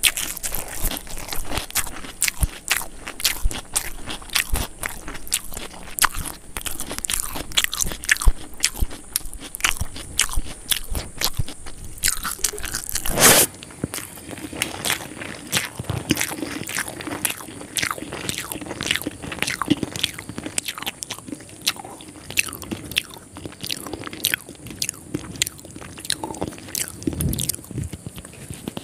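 Close-miked eating: biting, crunching and chewing, full of quick sharp clicks and crackles, with one louder crunch about halfway through. Fingers work through mutton biryani on a plate.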